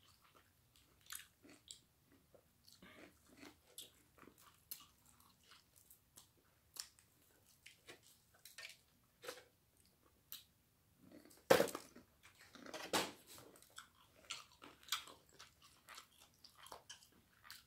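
Chewing and biting of crispy breaded fried chicken, close to the microphone: frequent small crunches and crackles. There are two louder crunching noises about eleven and thirteen seconds in.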